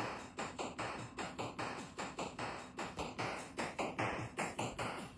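A rapid, even run of sharp taps, about four a second, with no tune under them.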